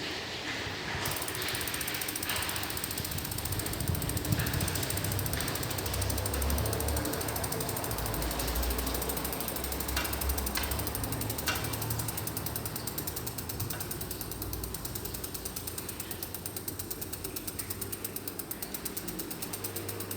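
Road bike wheel ticking rapidly with a mechanical ratcheting sound as it turns on the Triban RC520. About halfway through come two sharp clicks, a second and a half apart: the spoke noise that the owner puts down to poor-quality spokes.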